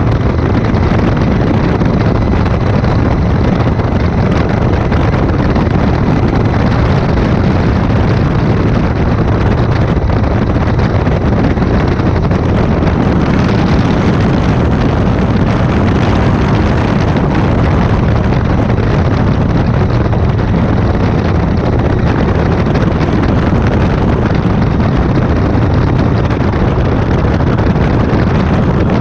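Light aircraft engine droning steadily in flight, mixed with rushing wind noise on the microphone; loud and unchanging throughout.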